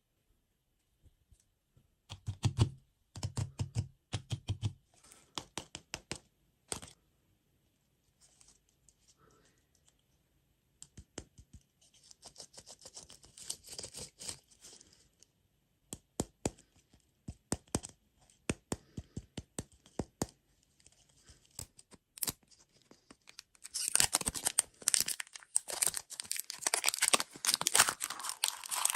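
A candy or surprise-egg wrapper handled by hand: scattered crackles and clicks at first, then, about four-fifths of the way in, loud, continuous crinkling and tearing as the wrapper is pulled open.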